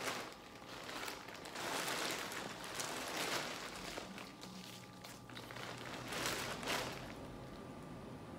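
Soft rustling, crinkling and wet squishing of hands working through seafood-boil shellfish, peeling shrimp and crab shells, in several short bursts.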